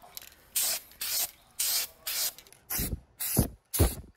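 Aerosol spray can spraying a coat of paint in short bursts, about two a second. The later bursts are louder and fuller.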